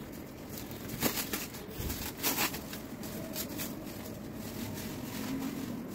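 Clear plastic wrapping on a circuit board rustling and crinkling as it is handled and pulled off, in several short crackles.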